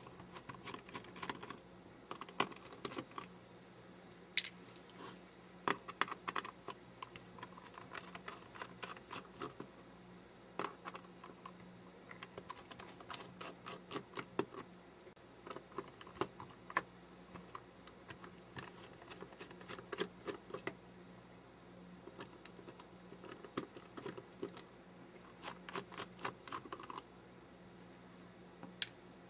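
Small precision screwdriver working tiny screws out of the plastic rear plate of a Canon PowerShot SX60 HS lens assembly: faint, irregular light clicks and ticks in clusters, with short pauses between screws.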